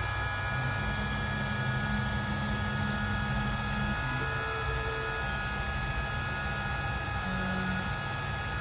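2M2 Tank2 Pro key cutting machine running steadily, its spindle motor whining as it mills the cuts into a Tata Indica key blade.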